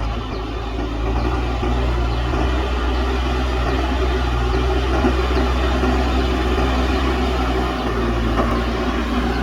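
Diesel engine of a JCB backhoe loader running steadily, getting a little louder about a second in.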